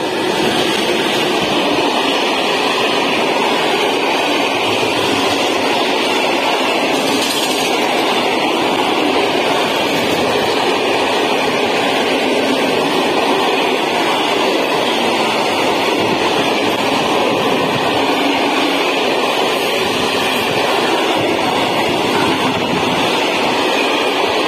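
A freight train of open coal wagons rolling past at speed, the steel wheels on the rails making a loud, steady rumble.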